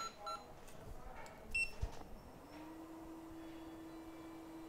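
A few short electronic beeps from microsoldering bench equipment, then a single knock. Just after that a hum rises in pitch and settles into a steady tone, the sound of a small motor or blower spinning up and running.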